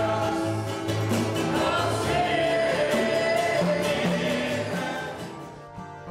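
A group of men singing a gospel song together, accompanied by ukuleles and acoustic guitar. The music fades down near the end.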